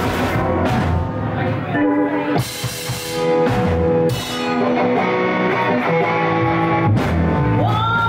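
A live funk jam band plays an instrumental stretch on electric guitar, bass guitar, drum kit and keyboards. Near the end a voice slides up into a long held note.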